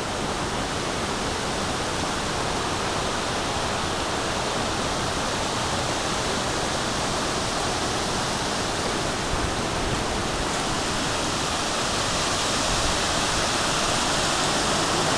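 A steady, rushing roar likened to distant jet engines, heard as a hurricane's winds pick up, growing slightly louder in the last few seconds. The filmer says it is not the local wind, since nothing nearby is moving like that.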